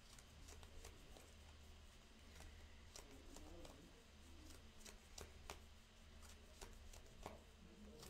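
Faint, scattered soft clicks and rustles of Yu-Gi-Oh cards being handled as a player searches through his deck, over a low steady hum.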